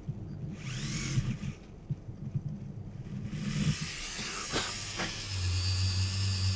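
Small handheld motor tool with a 0.8 mm drill bit running in short spells, drilling small holes in a plastic model kit fuselage; a high whine from the tool's motor, with a couple of light clicks about two thirds of the way in.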